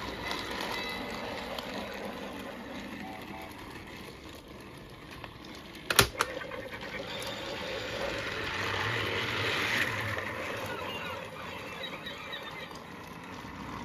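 Battery-powered toy train engine running along plastic track with a steady small-motor whir and rattle, and one sharp click about six seconds in.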